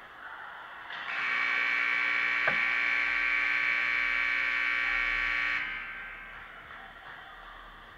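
Ice rink's electric horn sounding one steady buzz for about four and a half seconds, starting sharply about a second in.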